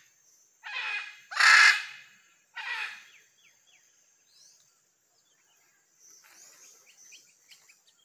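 Macaws giving three harsh, raspy squawks in the first three seconds, the middle one the loudest. Then faint chirps of small birds and a thin steady high-pitched whine.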